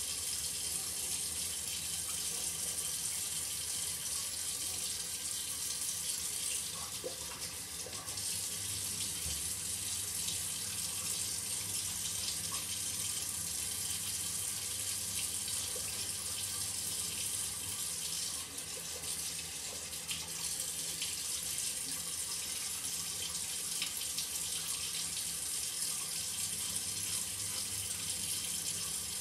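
Shower water running steadily, an even hiss of spray.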